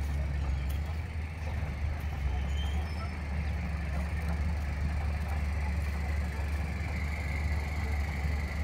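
Diesel engine of a 12-wheel truck running steadily at low revs as the truck creeps across a field, a low, even drone.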